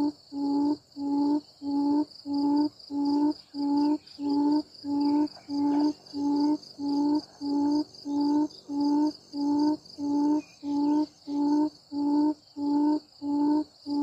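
A decoy quail's low hooting call, one short note repeated very evenly about three times every two seconds, used to lure wild quail to the net. A steady high insect drone runs underneath.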